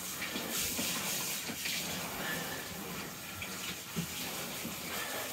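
Water spraying from a handheld shower head onto a dog's wet coat in a bathtub as the dog is rinsed off: a steady hiss of running water.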